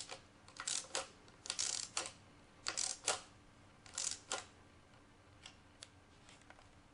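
Socket ratchet clicking in short bursts, about once a second, as it tightens the lower bolts of a steering damper frame bracket. The bursts stop about four and a half seconds in, leaving a couple of faint ticks.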